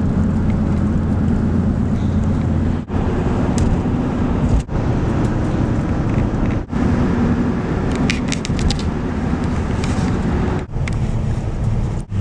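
Steady engine and road noise of a moving car, in short stretches broken by brief dropouts, with a few faint clicks about two-thirds of the way through.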